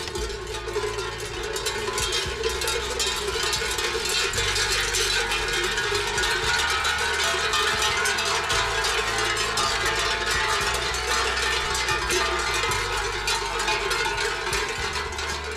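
Many cowbells on grazing Pyrenees cows clanking and ringing at once, a dense, continuous jangle of overlapping bell tones.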